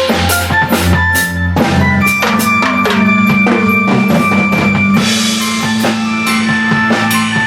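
A large drum kit being played in a busy jam: kick drum, snare and tom hits with many crashing and ringing cymbals, over sustained pitched notes underneath.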